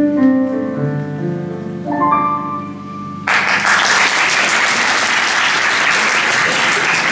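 Closing piano chords of the song ring out, then about three seconds in an audience starts applauding suddenly and the applause carries on.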